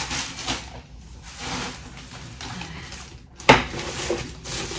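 Thin plastic carrier bags rustling as groceries are pulled out of them, with one sharp knock about three and a half seconds in.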